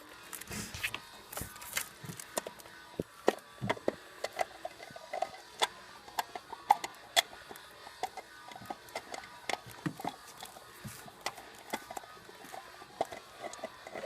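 Irregular light clicks and knocks of hard parts being handled as a distributor cap is fitted onto a Chevy 4.3 L V6's new distributor.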